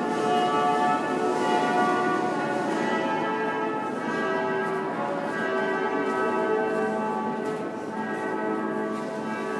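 Bells ringing in a continuous peal, many overlapping tones sounding one after another and fading, with no break.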